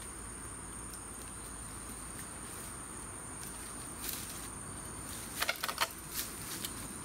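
A steady high insect trill in the bamboo forest. Dry leaf litter crackles briefly about four seconds in, then gives a quick cluster of clicks a little later.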